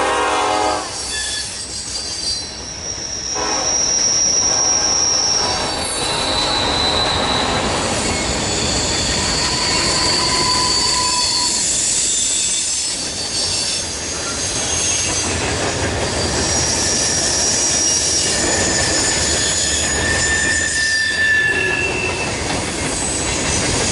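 Norfolk Southern freight cars rolling steadily past, their steel wheels squealing in high, shifting tones that come and go over the rumble of the train. A locomotive horn is ending about a second in.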